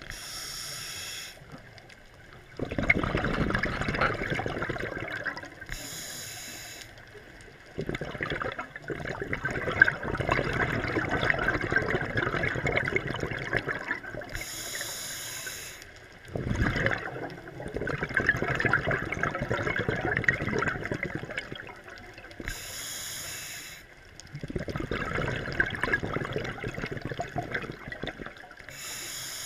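Scuba diver breathing through a regulator, heard underwater. Each breath starts with a short hiss from the demand valve on the inhale, followed by several seconds of exhaled bubbles rushing out. About four full breaths in a slow, even rhythm.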